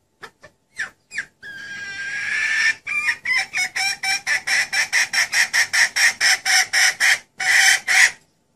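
Junglefowl hen calling, the lure call used to draw wild junglefowl cocks: a few short notes, a drawn-out rising squawk, then a fast, even run of clucks about four a second, ending in one longer note.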